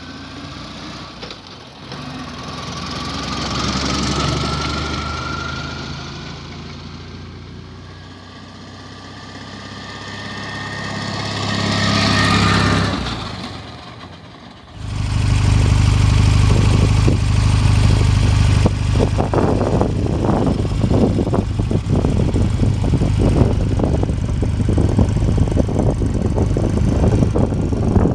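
Vintage military motorcycle engines: two passes that swell and fade with a changing engine note, then from about halfway an engine running loudly close by with an uneven beat.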